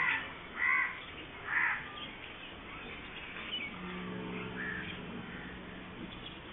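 Birds calling: three loud harsh calls in the first two seconds, then fainter calls. A low steady tone runs for about two seconds in the second half.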